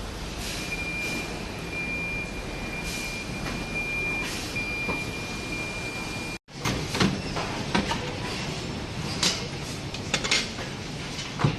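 Automatic battery welding machine running: a steady mechanical hum with scattered sharp clacks from its moving parts. A thin high tone holds for about six seconds, and the sound cuts out abruptly for a moment before the clacking resumes.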